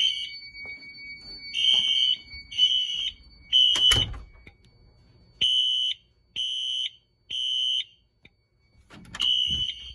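Fire alarm horns sounding in the temporal-three (code 3) evacuation pattern: three short blasts, a pause, then three more, with the next group starting near the end. This is the system in alarm after the pull station was activated. A door thuds shut about four seconds in.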